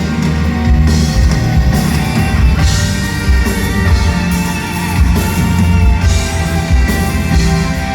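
Loud rock-band music playing an instrumental intro, with heavy bass, drums and guitar.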